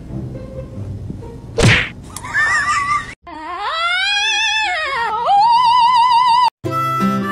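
A sharp whack about a second and a half in, followed by a short pitched cry. Then a domestic cat's long, drawn-out yowl that rises and falls in pitch and ends in a wavering held note.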